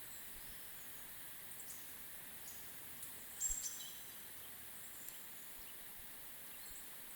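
Quiet forest-pond ambience: a steady faint hiss with scattered short, high-pitched chirps from small birds, and a brief louder burst of high calls about halfway through.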